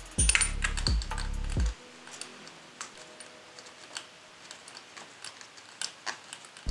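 Background music for about the first second and a half, cutting off suddenly. After it come faint, irregular small clicks and ticks as a spark plug, held in a length of rubber fuel hose, is hand-threaded into the cylinder head of a Yamaha Warrior 1700.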